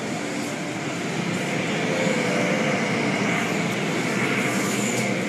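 Automatic car wash heard from inside the car: blue cloth-strip brushes spinning and swishing against the windows and body over the steady drone of the wash machinery and water spray. It grows a little louder about a second and a half in.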